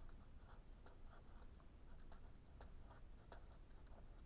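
A pen writing on lined notebook paper: faint, irregular scratching strokes as words are written out.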